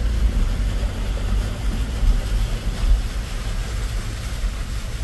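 Strong wind buffeting the phone's microphone: a loud, uneven low rumble that swells and dips in gusts, with a steady hiss over it.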